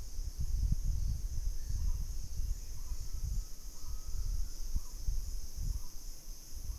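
Steady high-pitched insect chorus in a forest, with a faint short call repeating about once a second. Underneath, a gusty low rumble of wind on the microphone.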